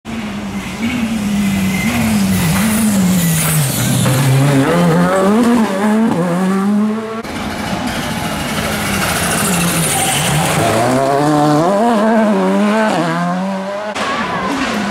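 Rally car engines revving hard through a tight junction, two cars one after the other, each engine's pitch climbing and dropping again and again with lifts and gear changes. The sound cuts abruptly from the first car to the second about seven seconds in.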